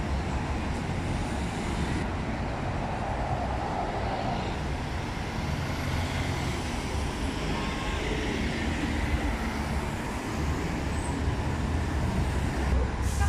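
Steady road traffic on a city street: the engines and tyres of passing vehicles.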